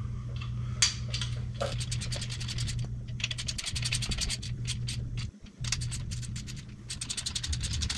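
Ratchet wrench with a 5/8 socket clicking in several quick runs, about a dozen clicks a second with short pauses between, as the main cap bolts are run down until they just touch, with no torque on them yet.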